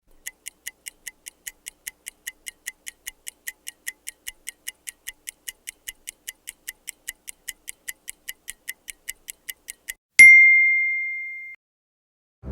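Microwave oven's mechanical timer ticking evenly, about five ticks a second, then a single bell ding near the end that rings out for over a second: the timer running down to zero.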